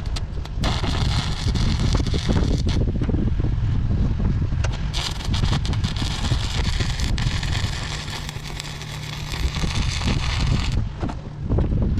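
Wind buffeting the microphone, with two long stretches of steady hissing noise that start and stop abruptly, one near the start and a longer one from about five seconds in to near the end.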